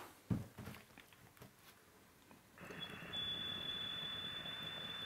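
A few light knocks from a vaporizer and its glass water attachment being handled, the loudest just after the start. Then, from about two and a half seconds in, a steady airy rush with a thin high whistle as air is drawn through the glass water attachment on an inhale.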